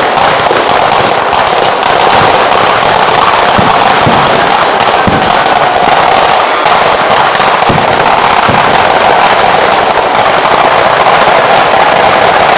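A close-range fireworks barrage of firecrackers going off at ground level: a loud, dense, unbroken crackle, with a few deeper thumps through it.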